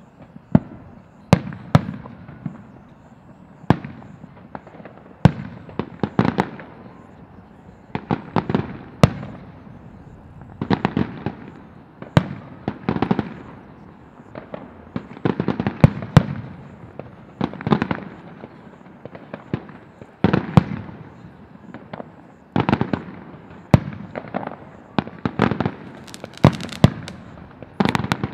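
Aerial firework shells bursting in steady succession, each a sharp bang followed by a rolling echo, roughly one every one to two seconds, with the bangs coming closer together near the end.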